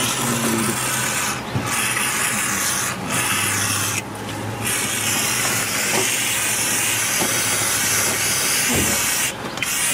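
Aerosol can of brake cleaner spraying onto a rusted wheel hub: a steady hiss in long bursts, broken by four short pauses.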